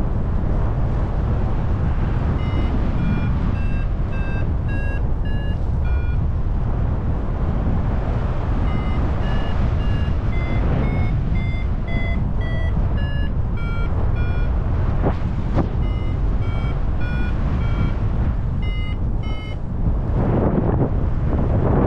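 Paragliding variometer beeping in runs of short tones, about two a second, the pitch stepping up and down, over a steady rumble of wind on the microphone. The beeping signals that the glider is climbing in rising air.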